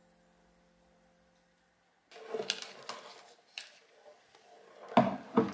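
Near silence for about two seconds, then a run of knocks and clatters from things being handled, with the two loudest knocks close together near the end.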